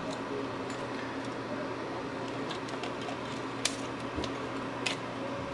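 Light clicks and rustling of a laptop's cables and plastic parts being handled, with two sharper clicks near the end, over a steady low hum.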